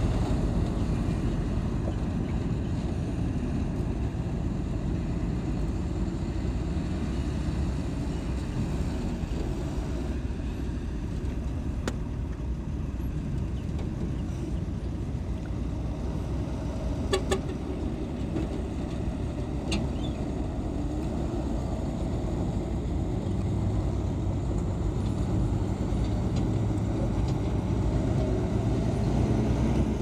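Diesel engines of heavy earthmoving machinery running and working steadily, a low continuous rumble that grows a little louder toward the end. A short toot sounds a little past halfway.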